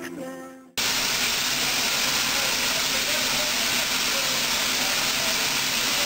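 Music fades out, then about a second in a steady hiss starts abruptly. It is steam escaping from low on the side of standing steam locomotive No. 12, near its wheels.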